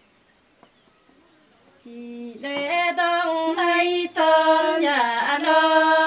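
A woman sings a verse of Nùng call-and-response folk song (hát đối đáp), solo and unaccompanied, in slow, long-held notes with a dip in pitch near the end. It starts about two seconds in, after a near-quiet pause.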